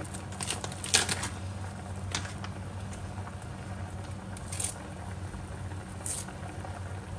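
A pot of young-jackfruit curry in coconut milk simmering on a gas burner over a steady low hum, with a few scattered sharp pops and clicks.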